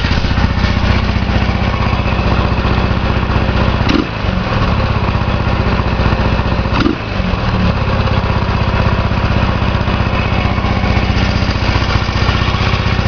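Yamaha SR500 single-cylinder four-stroke engine running at a fast idle of about 2,000 rpm, on its first run after 14 years laid up. Its revs change briefly twice, about 4 and 7 seconds in, then settle back.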